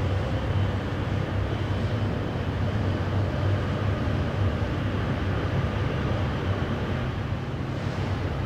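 Cruise ship Le Champlain's engines giving a steady low drone as the ship passes close by.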